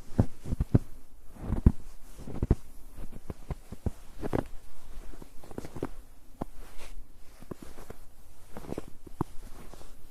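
Footsteps in snow on a snow-covered road: an uneven series of soft crunching steps, about one to two a second.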